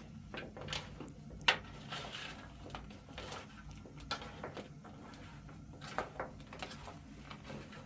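Irregular light knocks and clicks, about a dozen, the sharpest about a second and a half in, over a low steady hum.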